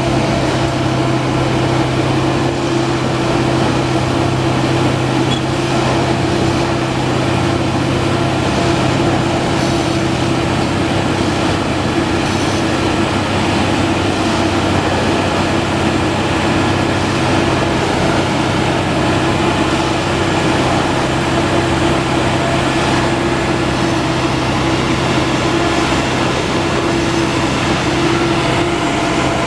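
Heavy diesel-powered railway track maintenance machine running steadily with a constant low hum.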